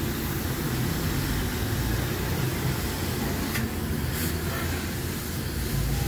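Garden hose spray nozzle spraying water onto a window air conditioner's coil during cleaning: a steady hiss over a steady low rumble.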